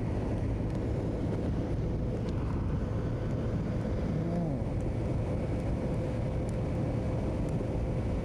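Motorcycle running at a steady speed while being ridden, with a steady low rumble of engine, road and wind noise picked up by a clip-on mic on the rider.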